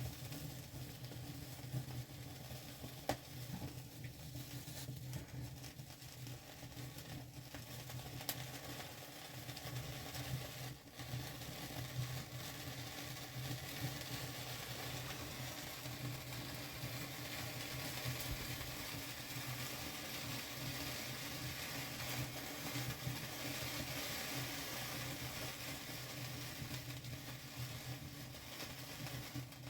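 Steady sizzling hiss with a few faint crackles, as of a wood fire burning.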